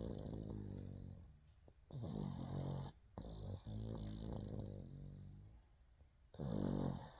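Pug snoring in its sleep: a series of buzzing snoring breaths, each a second or two long, with short pauses between them.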